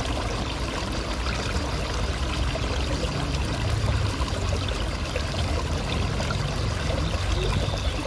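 Water pouring from several outlets under concrete slabs into a shallow pool, a steady splashing pour.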